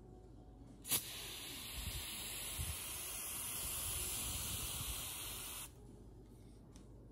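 Aerosol spray can spraying a white coat onto a die-cast model car in one continuous hiss of about five seconds. It starts with a sharp click about a second in and cuts off suddenly.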